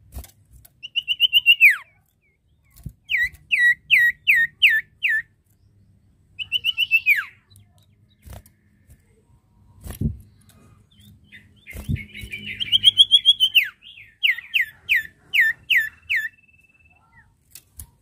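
Common iora (sirtu or cipoh) calling: a quick trill that slides into a long falling whistle, then a run of about five quick hooked notes, the whole phrase given three times. A few short knocks fall between the phrases.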